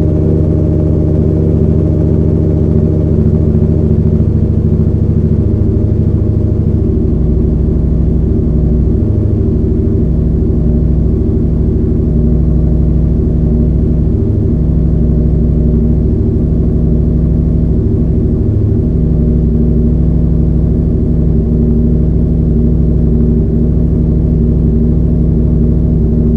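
Engine idling steadily through a Toce full exhaust system, a loud, low-pitched exhaust note with small changes in its low beat about a quarter and about two-thirds of the way through.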